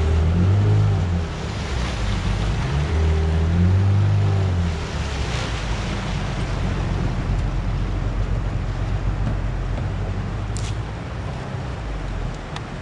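A boat's outboard motor running while underway, with wind buffeting the microphone and water rushing past. The motor's low hum swells twice in the first five seconds, then settles to a steady run.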